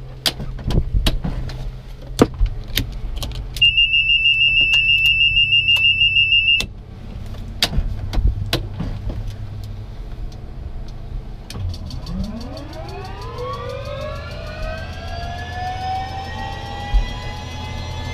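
Bell 206 JetRanger cockpit during engine start: switches clicking over a steady low hum, and a high pulsing warning tone for about three seconds. Then the Allison 250 turboshaft begins spooling up, a whine rising steadily in pitch.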